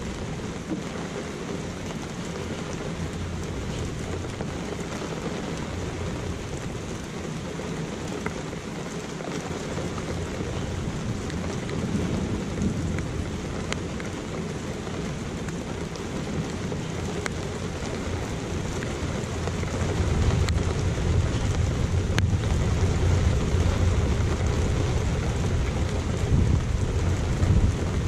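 Steady rain falling, with rolling thunder: a low rumble swells briefly near the middle and builds into a long, louder rumble about two-thirds of the way in.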